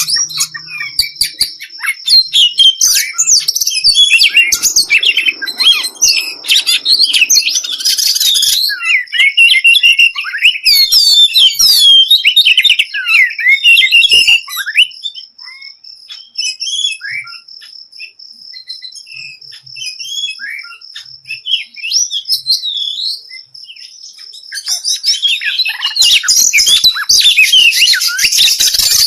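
Songbirds chirping and twittering in rapid, varied phrases over a steady high-pitched tone, used as masteran song for training cage birds to sing. The calls thin out around the middle and return dense and loud near the end.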